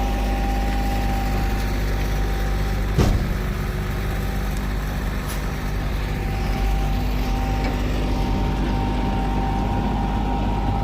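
Diesel engines of asphalt paving machinery running steadily, with a single sharp metallic clank about three seconds in.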